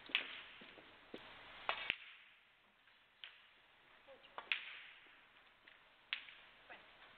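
Snooker balls clicking: the cue tip striking the cue ball and balls knocking together, about half a dozen sharp single clicks spread a second or more apart.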